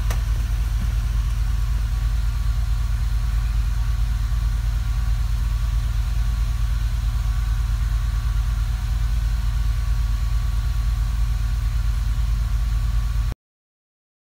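A Chevrolet Tahoe's Vortec V8 idling steadily, heard from inside the cab while it warms up toward operating temperature with the electric cooling fans not yet running. The sound breaks off abruptly near the end.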